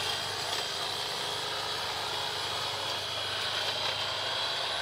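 A chainsaw running at a steady speed, an even motor drone that neither revs up nor dies down.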